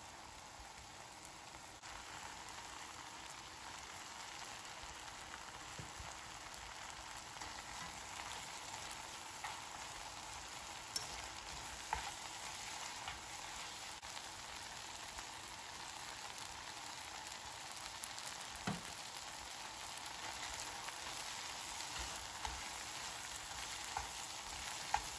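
Rice noodles, scallions and cabbage sizzling as they stir-fry in a pan, tossed with wooden chopsticks that click against the pan now and then. The sizzle gets a little louder about two seconds in.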